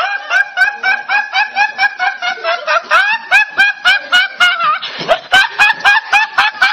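A young man laughing uncontrollably, a high-pitched, wheezing laugh in rapid, even bursts of about four a second, with a short catch for breath near the middle.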